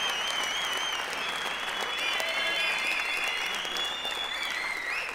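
Live theatre audience applauding steadily, with several high, wavering whistles over the clapping.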